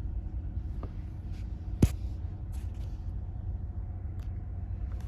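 Steady low rumble of a GMC pickup truck running, heard inside the cab, with one sharp click a little under two seconds in.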